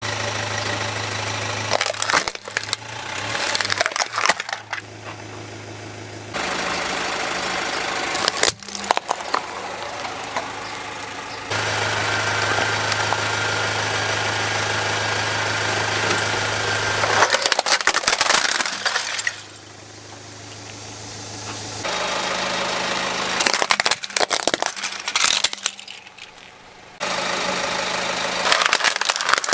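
A car's tyre rolling over plastic toys and crushing them: about five bursts of cracking and crunching plastic, with the car's engine idling steadily between them.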